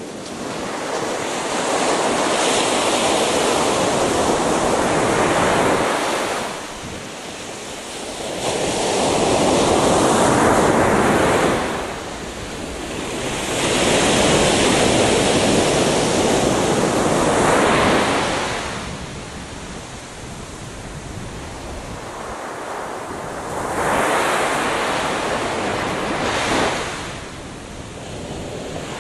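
Gentle sea waves breaking on a beach, a wash of surf that swells and ebbs in slow surges every four to six seconds.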